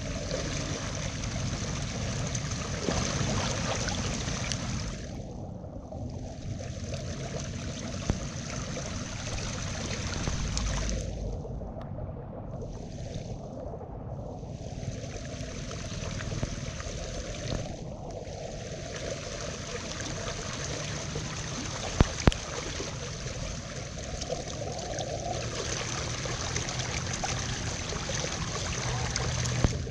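Muddy floodwater running fast and steadily through a net fish trap, with splashing as a man wades and works in it. Two sharp clicks about two-thirds of the way through.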